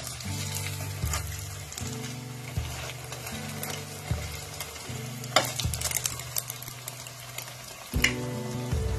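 Hot oil sizzling steadily in a kadai as a stuffed mini Moghlai paratha deep-fries, with a few sharp clicks of a perforated steel spatula against the pan. Soft background music plays underneath.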